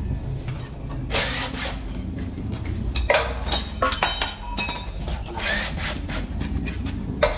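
Tool noise during an engine teardown: several short, harsh bursts about half a second long, roughly every two seconds, with a brief metallic ringing about four seconds in, over a steady low rumble.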